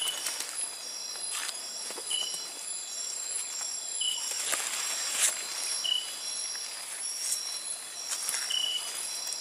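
Night chorus of insects: a steady high shrilling with calls that repeat at even spacing, one short call about every two seconds and a quicker pulsing one above it. Brief crunches of footsteps on dry leaf litter come through now and then, the loudest a little past the middle.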